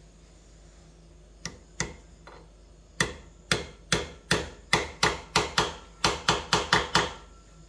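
A hammer striking metal: two light taps, then a run of about fourteen quick blows, about three a second, each with a short ring.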